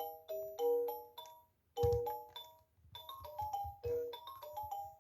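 Fisher-Price musical toy teapot playing an electronic chime-like tune, note by note, with a short pause and a low knock about two seconds in.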